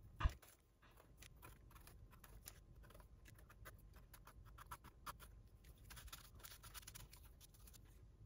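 Faint scraping and small clicking of a knife working on freshly picked bolete mushrooms, trimming and halving them, with a soft knock just after the start.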